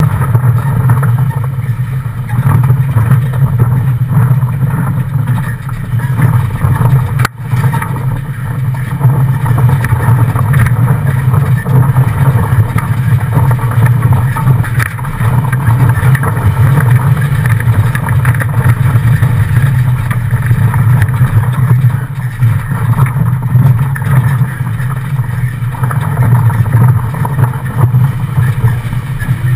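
Mitsubishi Triton ute driven off-road, heard from under the rear axle: a loud, steady low drone of engine, driveline and tyres. There is a brief dropout about seven seconds in.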